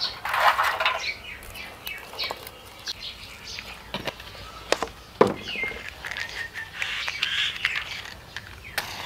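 Small birds chirping in the background, over the rustle and a few sharp snaps of dry twigs and bark being handled to build a wood fire.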